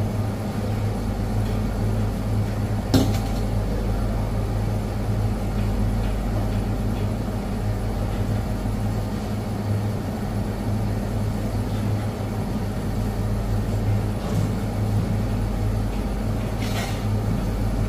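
Steady low mechanical hum of commercial kitchen equipment, with a sharp knock about three seconds in and a fainter one near the end.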